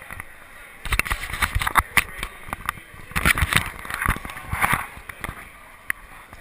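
Busy crowd of cyclists handling road bikes: irregular clicks and knocks of bikes and shoes on the floor over a noisy background.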